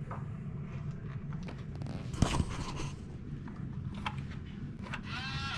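Footsteps and handheld-camera handling noise over a low rumble, with scattered clicks and knocks. The sharpest click comes about two seconds in, and a brief voice is heard near the end.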